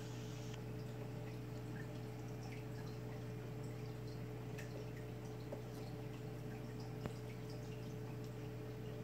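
Reef aquarium's equipment running: a steady hum with water trickling and dripping throughout, as from the tank's pump and overflow.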